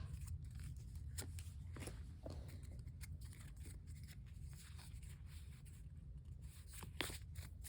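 Faint handling of Pokémon trading cards and packs: soft scattered clicks and light rustles, a little clearer about seven seconds in, over a steady low hum.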